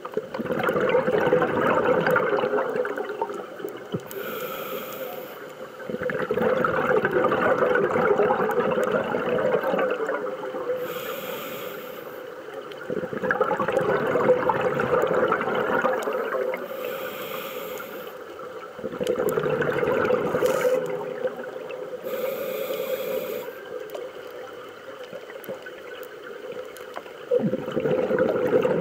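A scuba diver breathing through a regulator underwater in a slow cycle of about six seconds. Each breath gives a short hiss on the inhale and a longer stretch of bubbling on the exhale.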